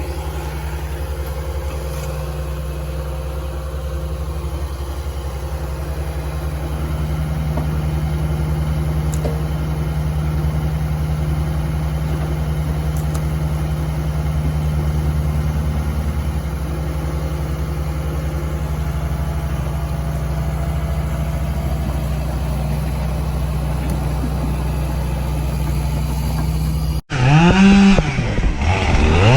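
Diesel engine of a compact earthmoving machine running steadily under light load while it moves logs. Near the end this cuts to a chainsaw revving up and down.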